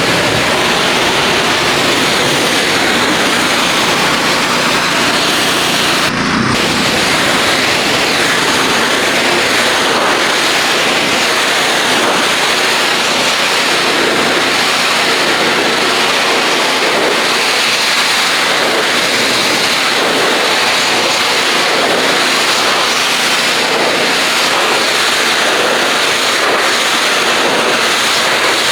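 Pressure washer spraying a steady high-pressure water jet, rinsing soap off a truck, with its pump running underneath; the spray breaks off briefly about six seconds in.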